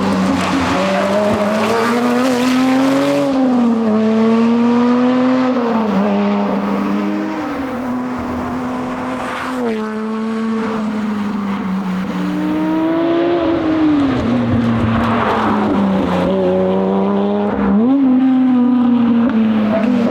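Lotus Exige Sport 350's supercharged 3.5-litre V6 driven hard on a rally stage, the revs repeatedly climbing and then dropping sharply through gear changes.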